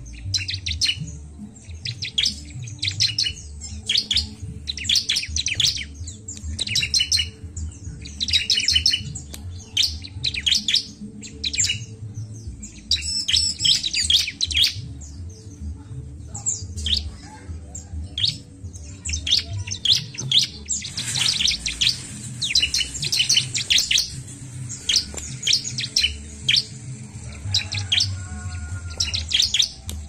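Bar-winged prinia (ciblek) chirping in quick, high trills that come in short bursts about once a second.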